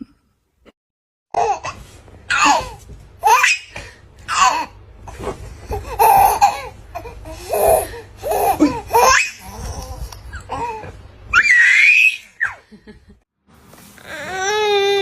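Baby laughing in a run of short repeated bursts with high squeals. Near the end it turns into a sustained wavering wail.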